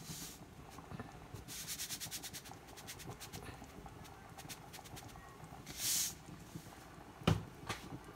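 Table salt shaken from a plastic salt container over a pot: a quick run of rattling shakes, scattered clicks, a short hiss about six seconds in, and one sharp knock near the end.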